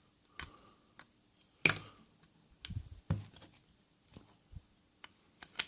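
Pliers working the metal tabs of a deadlock's folded-over plate, bending them out: irregular sharp metal clicks with a few dull knocks, the loudest clicks about one and a half seconds in and near the end.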